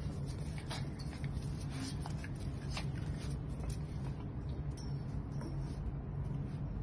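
A Staffordshire bull terrier puppy's claws clicking and scratching on tiles as it moves about and plays with a toy, in light irregular ticks, over a steady low hum.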